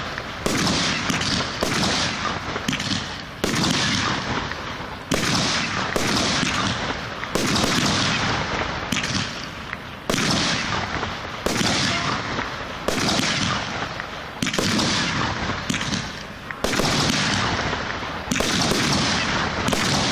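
Aerial firework shells bursting in quick succession: a sharp bang about every second or second and a half, each trailing off in a fading rumble and hiss before the next.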